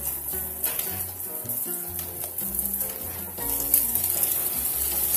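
Diced onions sizzling in oil in a frying pan, the sizzle growing louder with a knock about three and a half seconds in as diced ham is scraped off a cutting board into the pan. Background music plays along.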